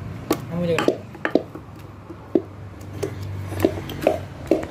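Wooden mathu (churning stick) mashing ripe rasakadali bananas in a steel bowl: irregular knocks of the wood against the bowl with soft squishing of the fruit pulp.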